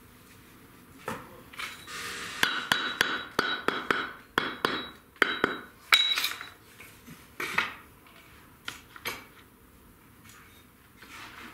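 Bricks being tapped and knocked into place with a mason's hammer during bricklaying: a quick run of sharp, ringing clinks from about two to six seconds in, then a few single knocks.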